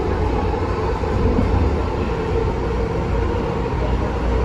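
MTR M-train electric multiple unit running at speed: a steady low rumble of wheels on rails with a steady hum.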